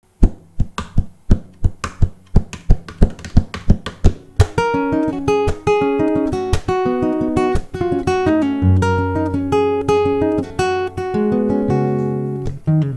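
Solo nylon-string classical guitar playing a Costa Rican tambito. It opens with about four seconds of sharp, muted percussive strokes, roughly four a second. About four and a half seconds in, plucked melody notes over a bass line take over.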